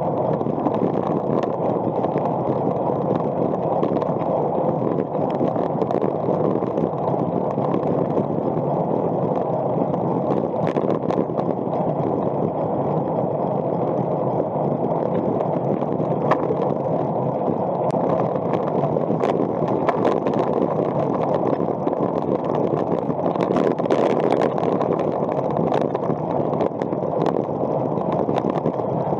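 Wind rushing over a bike-mounted action camera on a road bike ridden fast, a steady rush with scattered faint ticks from the road surface.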